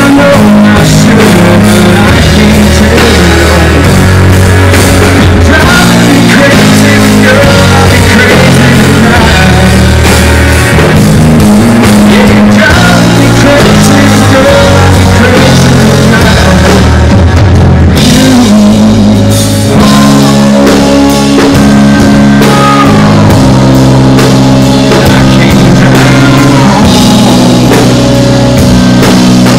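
Live band playing a country-rock song loudly over a PA: drum kit, electric and acoustic guitars, bass and keyboards, with a male lead vocal.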